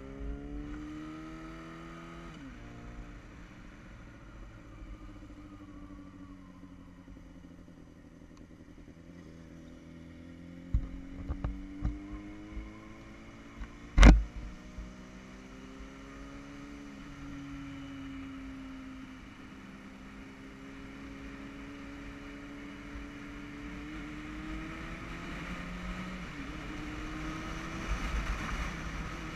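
Yamaha motorcycle engine under way, its pitch climbing as it accelerates and dropping with gear changes and easing off, over and over. A single sharp knock comes about halfway through, after a few smaller thumps, and wind rush builds near the end.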